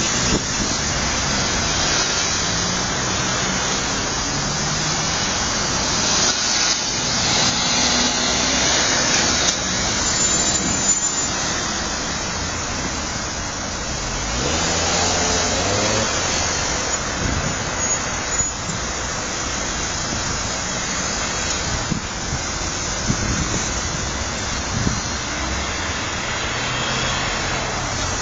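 Road traffic going round a roundabout: cars and vans passing close by with steady engine and tyre noise, and one engine note rising as a vehicle pulls away about halfway through.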